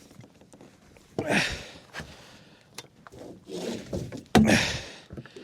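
Scattered knocks and thumps on a fishing boat, with short breathy rushes of noise between them and the loudest thud about four and a half seconds in, as a big blue catfish is handled aboard.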